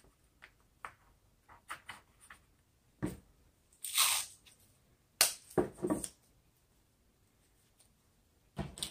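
Masking tape pulled off its roll in a ripping burst about four seconds in, then a few shorter rips as pieces are torn off, and another near the end. Before that, light taps and rustles of paper being pressed into the canvas.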